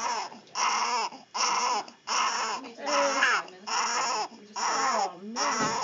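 Newborn baby crying, about seven short wails in a row with quick breaths between.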